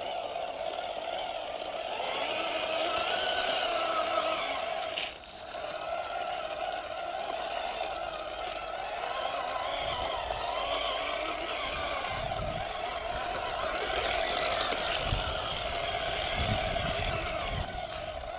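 Radio-controlled scale Land Rover model driving over a grass lawn, its drive running steadily with a pitch that wavers up and down. It drops out briefly about five seconds in.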